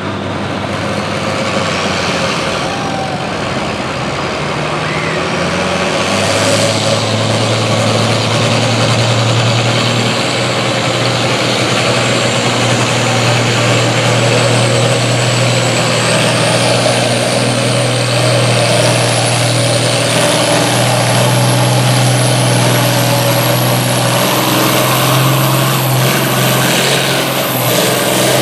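International 1066 tractor's six-cylinder diesel running steadily as it sits hooked to the pulling sled, its note stepping up about six seconds in. A high whine rises slowly in pitch through the second half.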